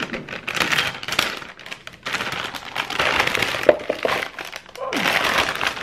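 A plastic potato bag crinkling as it is handled and shaken, with baby potatoes tumbling out and knocking into a plastic mixing bowl a little past the middle.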